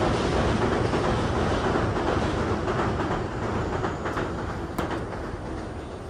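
Loud rumbling noise of a passing vehicle, fading steadily away, with a few sharp clicks in the second half.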